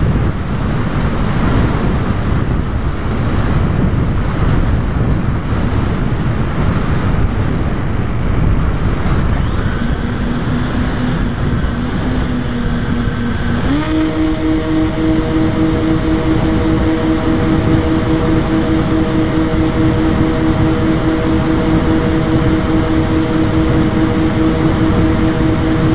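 Wind rushing over the onboard camera of a model FPV plane, with no motor tone at first. About a third of the way in the plane's motor and propeller come on with a steady whine, which steps up in pitch about halfway through and holds there as the throttle is raised.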